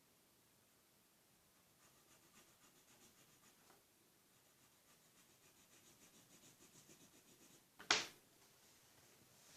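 Felt-tip marker rubbing faintly on paper in short repeated strokes while colouring in, with one sharp click about eight seconds in.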